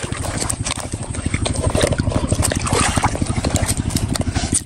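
Wet mud and water squelching and trickling as hands sift fish out of it in a plastic mesh basket. A small engine runs underneath as a steady, rapid low throb.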